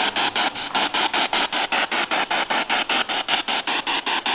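Spirit box (PSB7 radio scanner) sweeping rapidly through radio stations: a steady stutter of static bursts, about eight a second.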